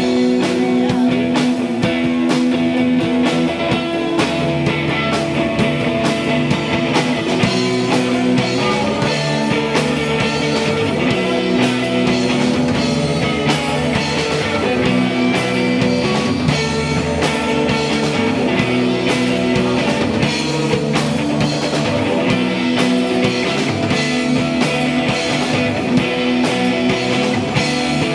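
Indie post-punk band playing live: electric guitars holding sustained chords over bass guitar and a steadily beating drum kit.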